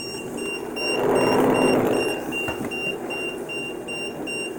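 Handheld EMF meter's alarm beeping rapidly and high-pitched, about four beeps a second, as it reads far above its danger threshold next to a switched-on white noise machine. A hiss of noise swells up about a second in and fades a second later.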